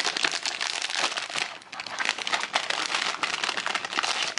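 Shiny plastic wrapper of a packaged croissant crinkling and crackling as hands handle it, in dense quick crackles that ease briefly about a second and a half in.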